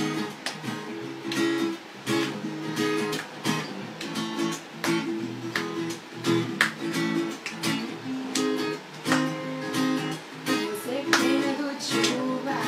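Acoustic guitar strummed in a steady rhythm, one chord stroke after another.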